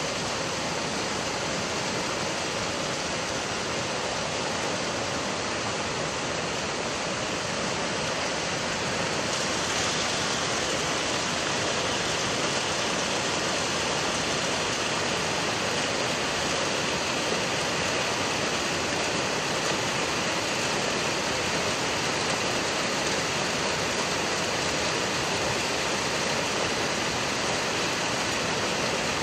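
Floodwater rushing steadily through a street, a continuous dense roar of water that grows slightly louder about ten seconds in.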